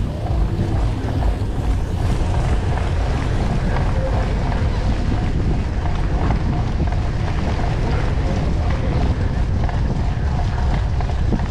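Wind rushing and buffeting over the microphone of a camera riding on a cyclocross bike, with the hiss and crunch of the tyres through wet sand and the drivetrain rattling underneath.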